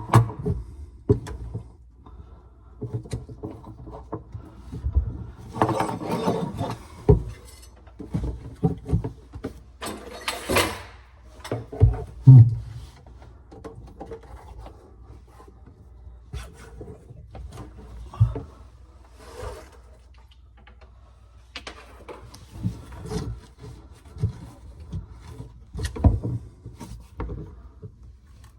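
Irregular knocks, thumps and rustling from objects being handled and moved, over a low steady hum.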